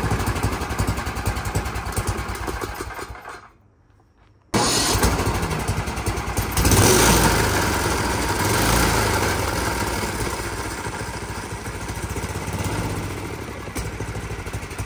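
Single-cylinder snowblower engine running on a homemade go-kart, driving the raised rear wheels through a chain. It dies away about three and a half seconds in, is silent briefly, then runs again, rising in speed a few seconds later before settling.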